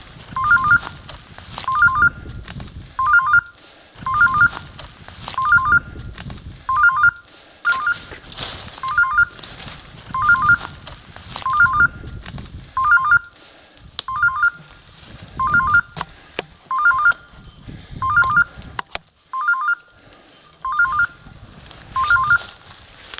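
Electronic beeper collar on a pointing dog sounding its point signal: a quick high double beep repeated about once a second, the sign that the dog is standing on point at a woodcock. Footsteps rustle through dry leaves and brush underneath.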